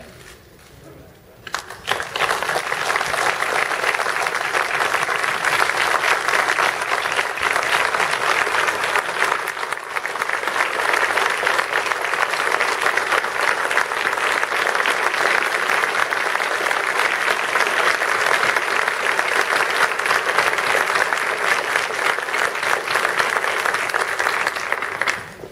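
A large crowd applauding at length in a standing ovation: dense, steady clapping that starts about a second and a half in and cuts off suddenly near the end.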